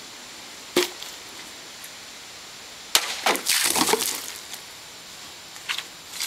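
A 12-inch 440C stainless chef knife chops through a plastic 2-liter bottle with a sharp crack about three seconds in, followed by about a second of crackling plastic as the cut bottle falls and clatters. A lighter click comes about a second in, and a few small taps near the end.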